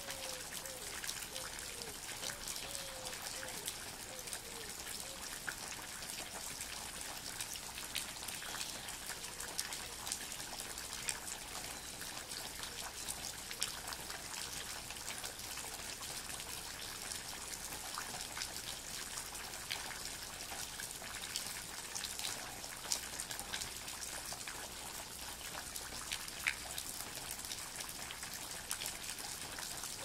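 Steady rainfall with many individual drops dripping close by, an even hiss. A faint series of short chirps comes in the first few seconds.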